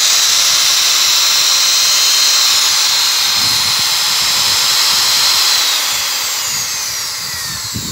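Hitachi 100 V corded electric drill with a 13 mm chuck running with no load, a steady high-pitched motor whine. About six seconds in, it winds down, its pitch falling as the motor coasts to a stop.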